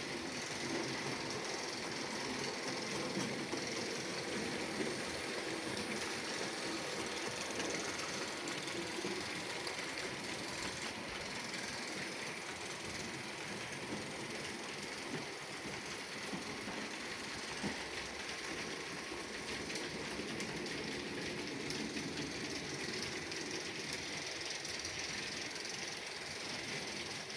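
H0-scale model trains running on a layout: a steady running noise from small electric motors and metal wheels on track, with a few small clicks.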